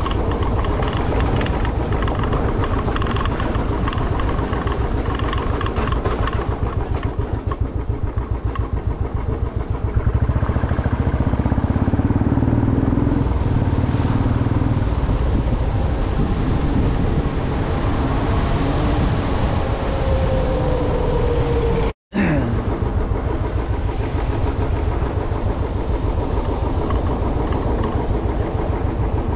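Motorcycle engine running while riding, a steady, dense pulsing beat that grows louder from about ten seconds in for several seconds, then eases back. The sound drops out completely for a split second a little past twenty seconds in.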